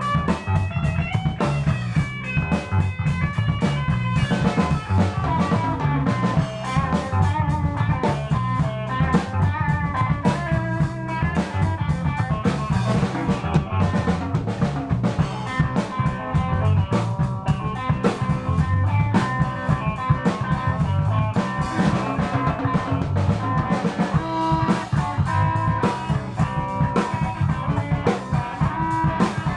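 A rock band jamming: guitar lines playing over a drum kit, continuous and loud.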